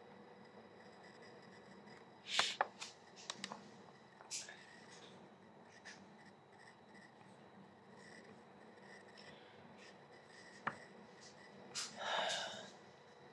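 Quiet small-room tone with scattered rustles and small knocks from a phone being handled and a person shifting position, several clustered about two seconds in, and a short breath near the end.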